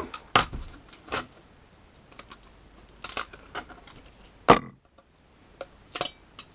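Clear plastic cutting plates of a manual die-cutting machine being handled and set down on a table: a series of separate sharp clicks and taps, with one louder knock about four and a half seconds in.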